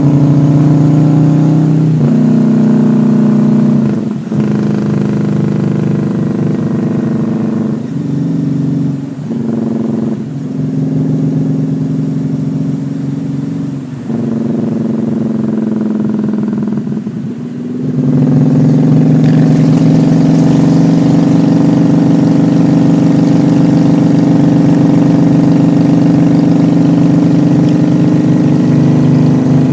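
Honda Shadow V-twin motorcycle engine running under way. Its pitch and level dip briefly several times in the first half as the throttle is eased off and back on, then it runs steadily from about two-thirds of the way in.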